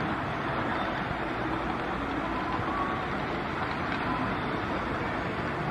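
Steady background noise with no distinct events.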